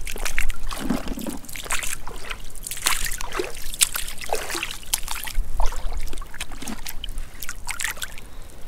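Wellington boots wading through shallow seawater: irregular sloshing and splashing steps.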